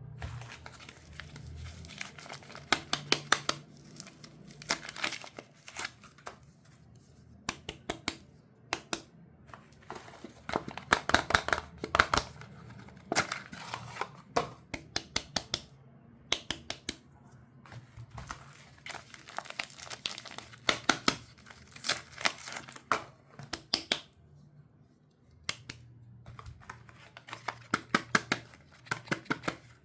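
Soap-bar packaging being unwrapped by hand: irregular clusters of sharp crinkling and tearing crackles, with short pauses between them.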